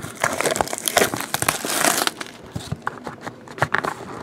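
Plastic shrink wrap being torn and crinkled off a sealed box of trading cards: a dense crackling for about the first two seconds, then scattered rustles and taps as the box is handled.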